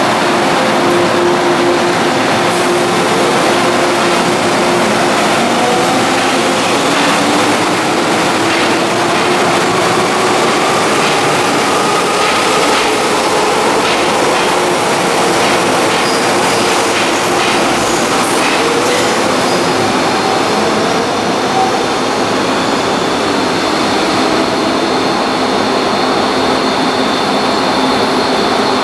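MTR metro train (an M-Train electric multiple unit) running through the station without stopping: steady loud wheel-and-rail noise with a traction-motor whine that glides up in pitch. After about two-thirds of the way through, the gliding gives way to steadier high tones.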